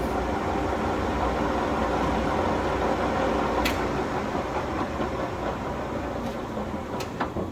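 Mori Seiki gap bed engine lathe running with its spindle at 285 RPM, a steady hum of headstock gearing and motor. A couple of sharp clicks come through, and the running eases off a little near the end.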